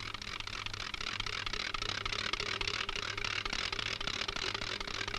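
Steady hiss and fine crackle with a low mains-type hum: the background noise of an old 1930s film soundtrack between lines of dialogue.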